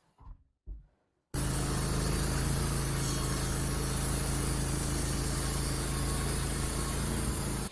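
Wood-Mizer LT15 portable band sawmill running steadily, an engine hum under a broad hiss, as it works through a log with the blade running dry. It starts abruptly about a second in and cuts off suddenly near the end.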